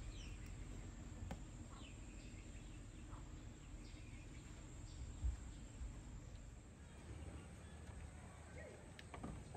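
Faint outdoor ambience: a low steady rumble with scattered short bird chirps, and one soft low thump about halfway through.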